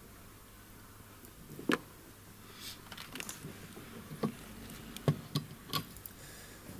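A few separate small clicks and taps from the plastic cover cap and pivot at the base of a windscreen wiper arm being handled by hand. The sharpest click comes a little under two seconds in, and several lighter ones follow over the next few seconds.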